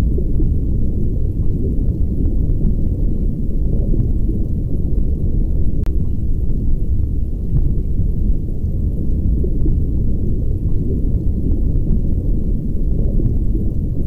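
Underwater ambience picked up by a camera below the surface: a steady low rumble of moving water, with a few faint scattered clicks.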